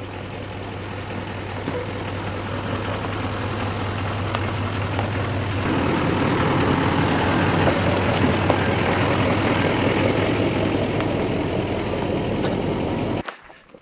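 Heavy-duty GMC pickup carrying a slide-in truck camper driving slowly over dirt: a steady engine note with the rumble of tyres on the ground, growing louder as the truck comes up to and passes close by, then cutting off suddenly near the end.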